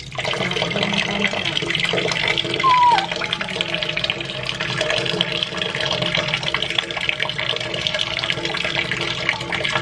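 Water running and splashing in a metal wash basin while a baby monkey is bathed in it, with one short falling squeak about three seconds in.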